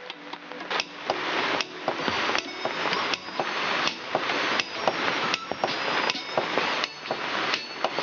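Claw hammer striking into a stack of green bamboo tubes: a steady run of about ten blows, a little over one a second.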